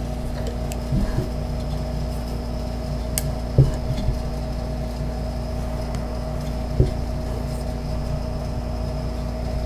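Steady low room hum with a few faint clicks and light knocks, about one, three and a half and nearly seven seconds in, as metal clips on the ends of a doll hammock are hooked onto the metal hooks of its wooden stand.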